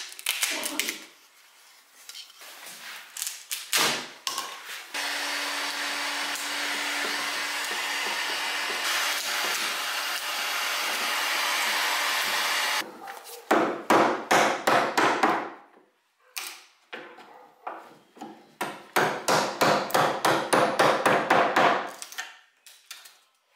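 A heat gun blowing steadily for about eight seconds to soften old glue in a wooden joint. Before it come a few short cracks and scrapes of old wood being prised apart. After it come two quick runs of sharp knocks, several a second, as a chisel is worked into the old pine frame.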